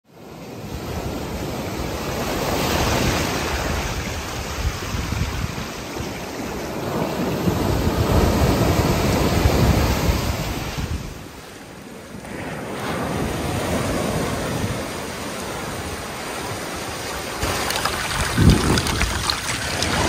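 Ocean waves breaking and washing up the shore, swelling and easing every few seconds, with wind buffeting the microphone and a brief low bump near the end.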